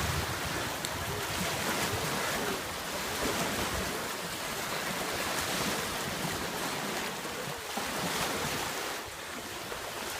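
Surf washing in steadily at the shore, with wind buffeting the microphone.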